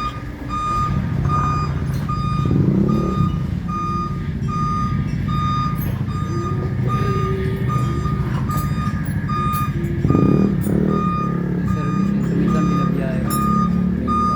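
Electronic warning beeper sounding steadily, about two short beeps a second, like a reversing alarm, over a low rumble with a couple of clattering handling noises.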